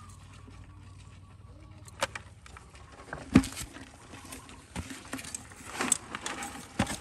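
Scattered knocks, taps and scrapes from handling: a serrated metal blade working the dirt and stones and a plastic bucket knocking against rocks, the loudest knock about three and a half seconds in.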